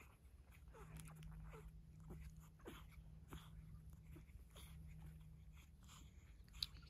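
Faint snuffles and small squeaks of a sleeping newborn Cavalier King Charles Spaniel puppy over a low steady hum, with a single click near the end.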